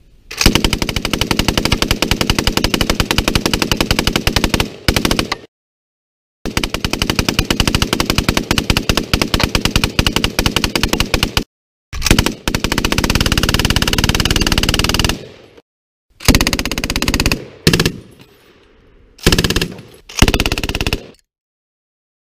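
A BSA-built Browning Mark II .303 aircraft machine gun firing in five long bursts of rapid fire, with short breaks between them. It is firing old hang-fire ammunition, which slows the gun's rate of fire.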